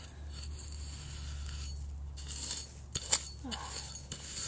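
A small metal digging tool scraping and clinking in soil as a small hole is filled in, with one sharp click about three seconds in, over a steady low hum.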